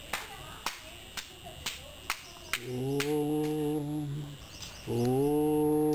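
A low voice humming or chanting two long, steady notes, each nearly two seconds, with a short break between. Before them comes a run of sharp clicks, about two a second.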